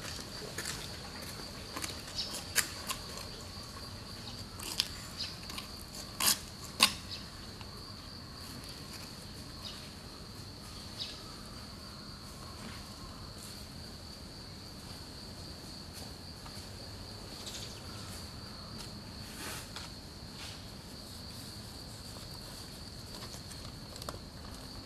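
An insect sings a steady, high, unbroken trill over quiet outdoor background. A few sharp clicks come in the first seven seconds, the two loudest about six and seven seconds in.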